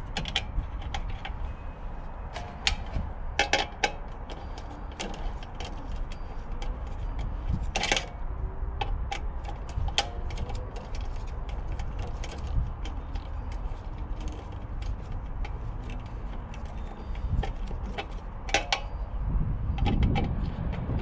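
Hands working stiff electrical wires and a hand tool inside a metal time-switch box: scattered small clicks, taps and light metallic rattles, over a low steady rumble.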